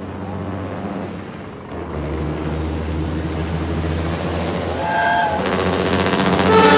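Old FNM truck's diesel engine running with a deep note, growing louder from about two seconds in. A short higher-pitched tone cuts in around five seconds and again near the end.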